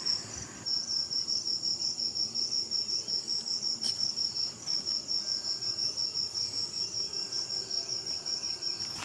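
Crickets chirping in a steady, high-pitched pulse of about five chirps a second, broken briefly twice, with a single faint click about four seconds in.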